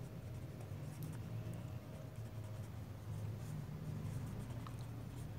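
Felt-tip marker writing on paper, a faint scratching of strokes over a steady low hum.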